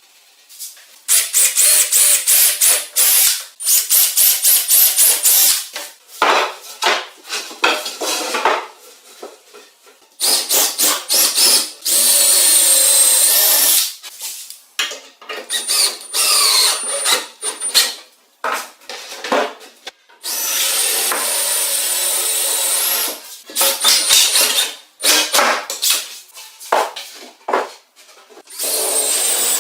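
A power tool working material in repeated bursts of a few seconds, stopping and starting, some bursts with a high whine.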